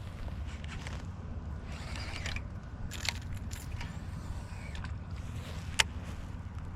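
Fishing reel being worked, with light mechanical clicking and rattling and one sharp click near the end, over a steady low rumble.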